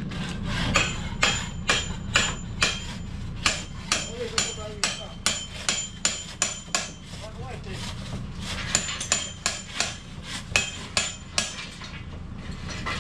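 Hammer blows on metal, about two a second, each with a short bright ring, as a boatyard worker secures the steel jack stands under a hauled-out sailboat's hull. The strikes pause briefly about eight seconds in and stop near the end, over a low steady rumble.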